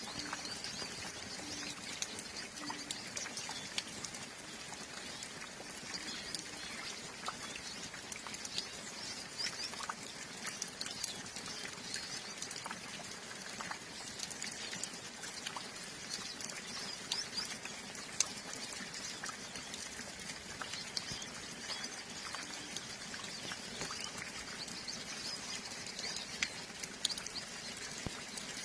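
Calm steady rain with scattered drips, and a flock of hooded siskins (Brazilian pintassilgos) chirping and twittering in many short high calls.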